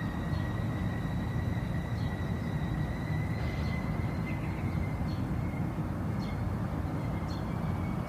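Indian train running steadily: a continuous low rumble with a thin, steady high whine above it.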